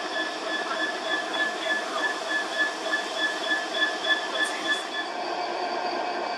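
Freightliner Class 66 diesel-electric locomotive's EMD two-stroke V12 engine running as the locomotive moves slowly past with its wagons. A high whine pulses about three times a second, then changes to a steadier, higher whine about five seconds in.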